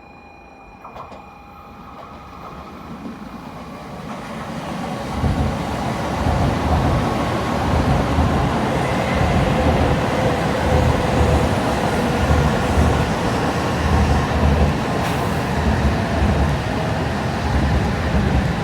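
Shinkansen train approaching and running along the platform: a rushing noise builds over about five seconds, then stays loud with a rhythmic low thumping from the wheels.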